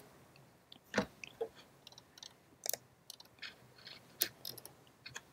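A quiet room broken by a dozen or so faint, short clicks and smacks at irregular intervals, one every half second or so.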